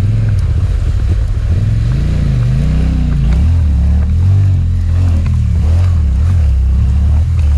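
Off-road motorcycle engine revving up and down, pitch rising and falling in repeated swells, as the bike is ridden through a deep water crossing.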